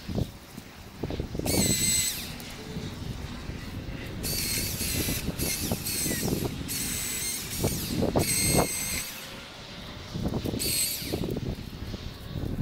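Milwaukee M18 Fuel battery chainsaw cutting cedar in six short bursts, each a high electric whine lasting about half a second to a second, with knocks and rustling of brush in between.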